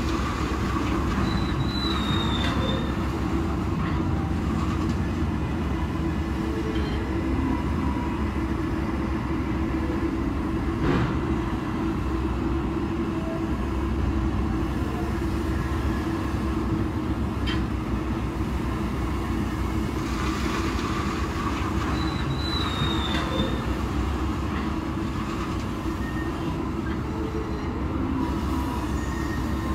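CAT 7495 electric rope shovel digging and loading a haul truck: a steady heavy machinery drone with a constant hum. Two brief high metallic squeals come about 2 seconds in and again about 22 seconds in.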